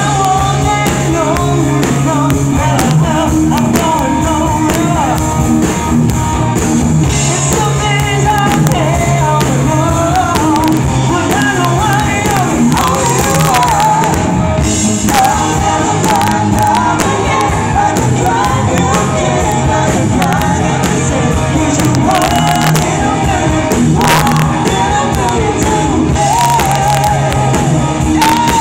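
Live hard rock band playing loudly: a male lead vocal sung over distorted electric guitars, bass and a drum kit.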